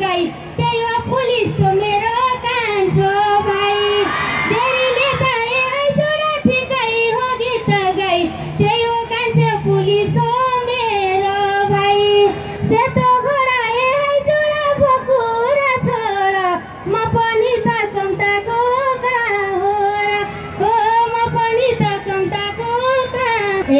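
A woman singing a Nepali dohori folk song into a microphone in long, bending phrases, over a steady beat of live accompaniment.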